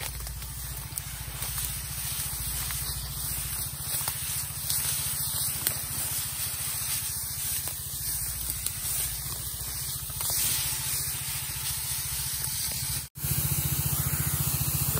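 Herbicide hissing from the nozzle of a high-pressure hose sprayer, steady, with a low hum underneath. The sound breaks off sharply about 13 seconds in and comes back louder.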